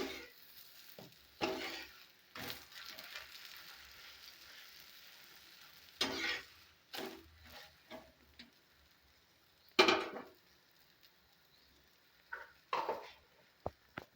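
Ghee sizzling on a hot tawa under a sweet wheat-flour pancake cooking on its second side, with a utensil scraping on the pan several times, loudest about ten seconds in, and a few light clicks near the end.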